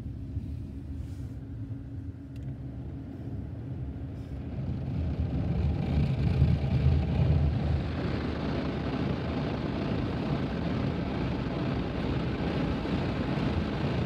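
Soft-touch car wash cloth brushes scrubbing over the car, heard from inside the cabin: a low steady hum at first, then a dense rushing swish that builds about four to five seconds in and stays loud and even.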